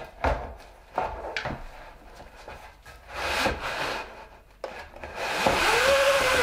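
Manual 100-inch 16:9 pull-down projector screen being drawn out of its case: a few clicks as the pull handle is worked, then, about four and a half seconds in, the fabric unrolls with a long rustling slide and a short rising-and-falling whine from the spring roller.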